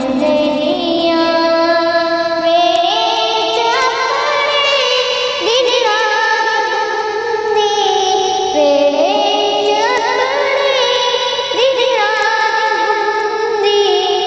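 Wordless singing of a naat melody, several voices layered, with held notes that slide up and down between pitches.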